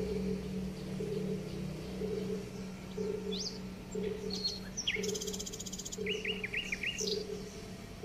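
Small birds chirping in short scattered calls, with a quick run of four or five chirps about six seconds in, over a steady low hum that pulses softly about once a second.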